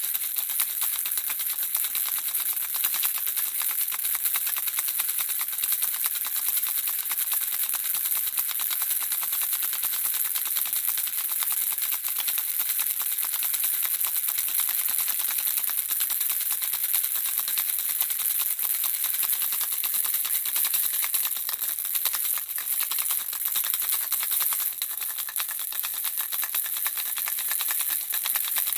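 Handheld baby rattle shaken continuously, small beads inside making a steady dense rattle of fine clicks.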